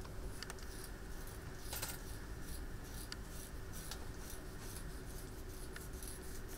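Scalpel blade scraping at an ancient cat bone in several short, scratchy strokes, over a steady low hum.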